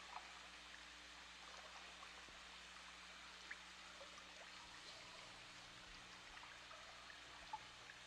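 Near silence: a faint steady hiss with a low hum, broken by a couple of soft ticks.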